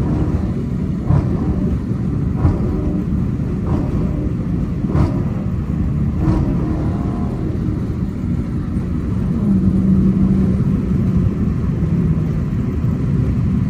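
Inside the cabin of a Dodge Challenger R/T at highway speed with the windows open: steady wind and road noise over the drone of its 5.7 Hemi V8. The engine note comes up a little about ten seconds in as the car gathers speed, and there are light knocks now and then in the first half.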